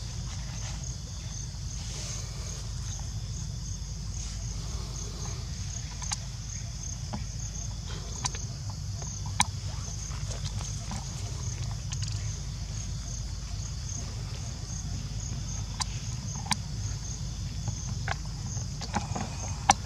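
Outdoor ambience: a high, evenly pulsing chirp, a few pulses a second, over a steady low rumble, with a handful of short sharp clicks scattered through, two of them louder than the rest.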